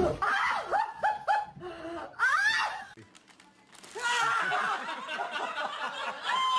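Several people laughing, with quick rapid-fire bursts of laughter early on. Then there is a short lull about three seconds in, followed by more laughter and chatter.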